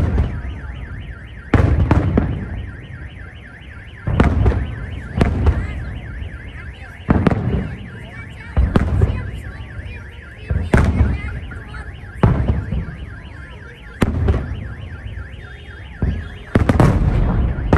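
Aerial firework shells bursting in a salute, a deep boom every one and a half to two seconds, each followed by a rumbling echo. A fast repeating high tone runs underneath the whole time.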